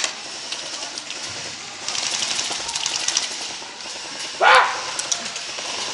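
Airsoft guns firing in rapid full-auto bursts, a quick run of sharp clicks. About four and a half seconds in there is one short, loud cry that falls in pitch.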